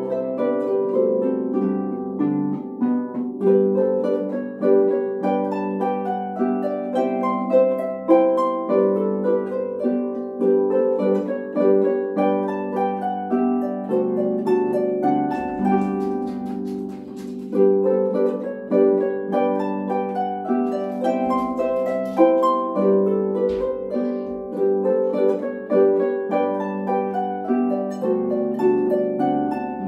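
Two harps playing a Ländler together, a folk dance in three-time, with plucked melody notes over a ringing bass line.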